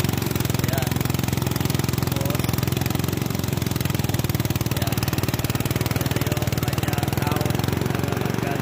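Portable engine-driven rice thresher running steadily, its small engine chugging in a rapid, even beat.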